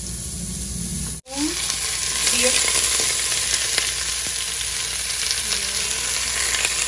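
Beef with onion and garlic sizzling in hot oil in a pressure cooker pot, a steady frying hiss. It drops out briefly about a second in and then comes back louder.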